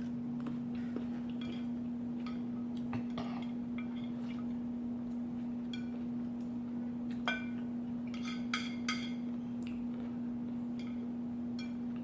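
Scattered light clicks and clinks of cutlery against dishware, a few sharper ringing clinks around seven to nine seconds in, over a steady low hum.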